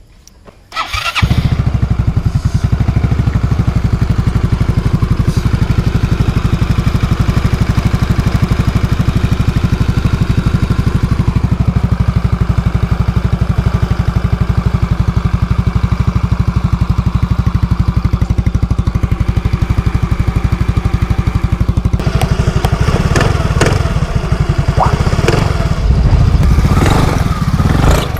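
Freshly top-overhauled Yamaha Mio MXi 125 scooter's single-cylinder engine, uncovered, starting about a second in and then running steadily. The sound turns more uneven in the last few seconds.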